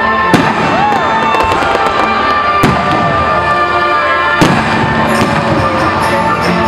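Fireworks bursting over loud music: sharp booms about a third of a second in, near three seconds and about four and a half seconds in, then quick crackling toward the end.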